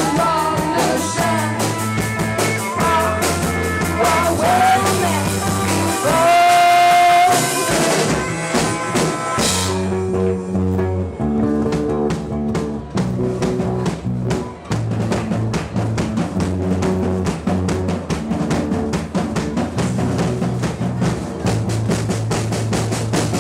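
Rock band playing live: bass, drums, guitar and vocals, with a long held note about six seconds in. From about ten seconds in the band thins to a bass line and drums.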